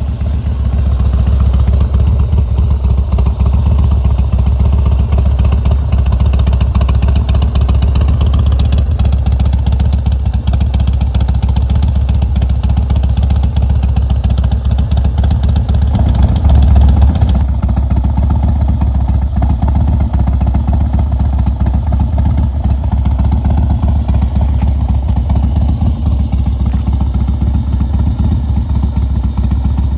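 Harley-Davidson Dyna's Twin Cam V-twin engine running steadily with a deep, loud low rumble, the motorcycle out on a short ride on its newly fitted mag wheels.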